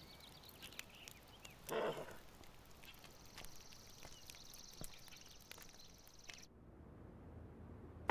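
Faint outdoor background with scattered light clicks and a brief low sound about two seconds in. A thin, steady high buzz starts about three seconds in and stops abruptly about six and a half seconds in, leaving quieter room tone.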